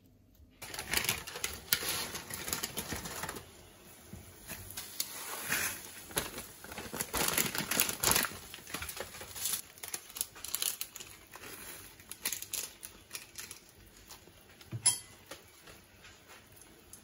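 Kitchen handling noise: a plastic seasoning sachet crinkling and being shaken out over a pan of instant noodles, with scattered irregular clicks and taps and one sharp knock about fifteen seconds in.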